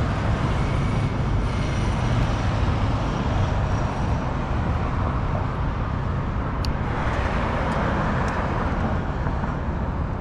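City road traffic heard from a moving bicycle: a steady low rumble throughout, with a vehicle passing close by about seven seconds in.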